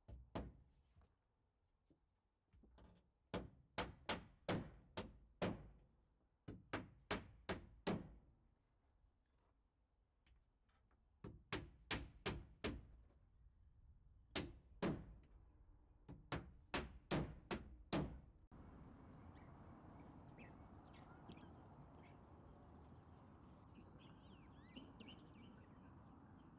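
Hammer driving nails into plywood siding: bursts of four to six sharp blows with short pauses between, stopping about 18 seconds in. After that comes a quiet outdoor background with a few faint bird chirps.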